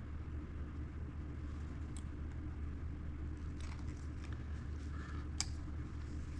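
Steady low hum with a few light clicks and ticks of small wire crimp connectors and wires being handled and tugged.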